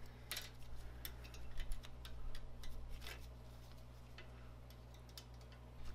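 Small steel balls clicking as they are loaded back into a 16 mm ball screw's ball nut, with many light, irregular ticks for the first three seconds or so, then fewer and fainter. A steady low hum runs underneath.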